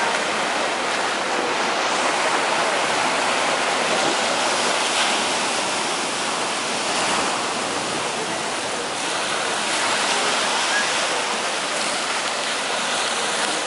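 Surf breaking and washing up a sandy beach: a steady rush of wave noise that swells and eases a little.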